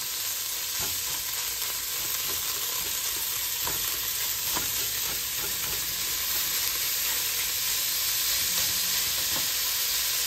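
Ground beef sizzling as it fries in a nonstick pot, a steady hiss, while a silicone spatula breaks it up with scattered scrapes and taps against the pan.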